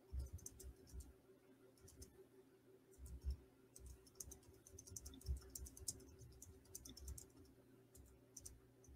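Faint, scattered keystrokes and clicks of typing on a computer keyboard, over a low steady hum.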